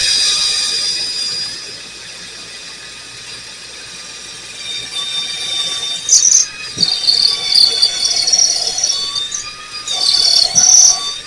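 Electric drill boring a hole through the fence. The motor whines at first and dies down, then high wavering squeals set in about halfway through as the bit cuts.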